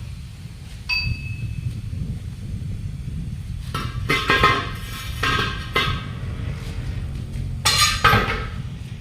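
Metal tools clanking against a steel truck wheel: one ringing strike about a second in, then bursts of knocks and clatter in the middle and near the end, over a steady low rumble.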